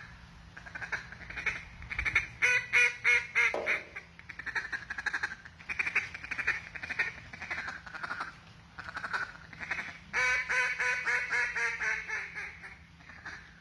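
Dixie Land Calls duck call blown in a calling-contest routine: runs of mallard hen quacks. There is a loud fast series of evenly spaced quacks about two and a half seconds in, and a long run about ten seconds in that falls in pitch.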